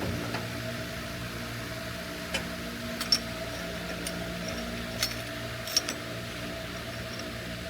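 Steady machine hum, with a few short sharp metallic clicks about two and a half, three, five and six seconds in.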